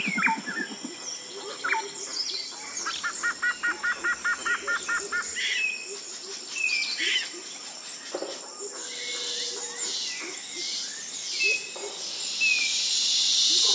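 Tropical jungle ambience: several birds calling with short chirps and whistles, including a quick run of about a dozen repeated notes about three seconds in, over a steady high insect drone that grows louder in the second half.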